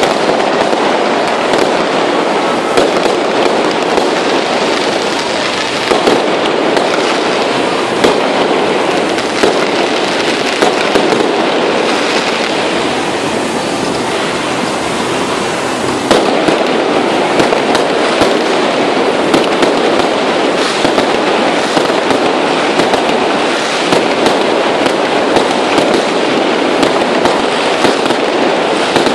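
Fireworks display: a dense, continuous crackle of launching and bursting fireworks, with many sharp pops scattered throughout.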